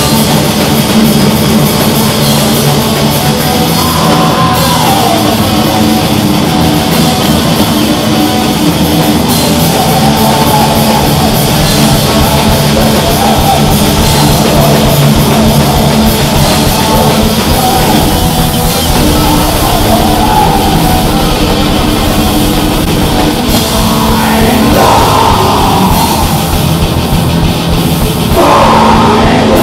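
A black metal band playing live: distorted electric guitars, bass guitar and drum kit, loud and dense with no break.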